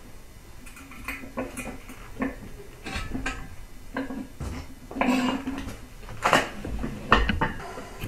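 Scattered metallic clinks and clanks, a dozen or so separate knocks, some ringing briefly, as work goes on at an engine on an engine stand; the engine is swung round on the stand near the end.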